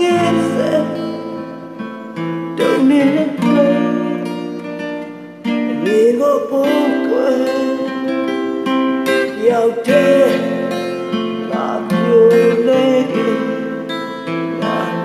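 Acoustic guitar played fingerstyle, chords and notes plucked by hand and ringing on.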